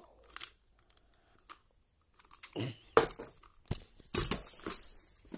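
Handling noise from a plastic toy T-rex figure being grabbed and moved about by hand: scattered clicks, knocks and rustles, a few faint ones at first and a dense run from about halfway through.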